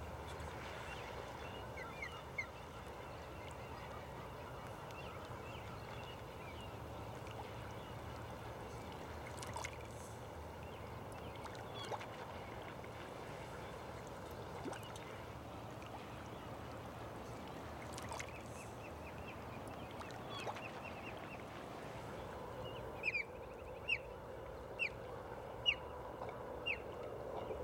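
Birds calling over a steady outdoor hiss: a few scattered short calls, then from near the end a run of short, sharp calls about once a second.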